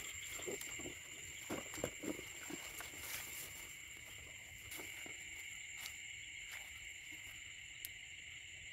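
A steady high-pitched night chorus of insects and frogs in a wet field. In the first three seconds it comes with short rustles and swishes of someone pushing through wet grass.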